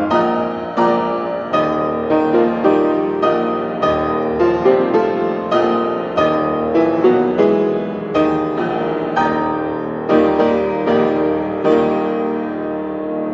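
Piano playing a slow passage of struck chords and notes, each left to ring. The last chord near the end is held and fades.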